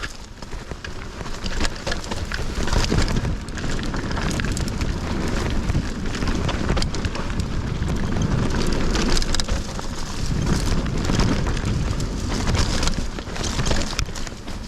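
Mountain bike riding fast down a dirt trail: tyres crackling over loose ground and the bike rattling with many short clicks, under a heavy low rumble of wind on the microphone.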